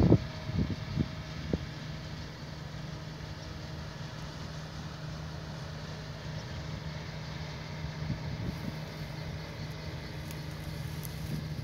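Claas Dominator 88 combine harvester running steadily while harvesting, a constant engine hum. A few brief low thumps near the start.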